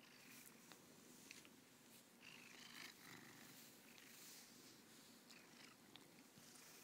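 Domestic cat purring steadily and faintly while being brushed, with the soft swish of brush strokes through its fur every second or so and a few light clicks.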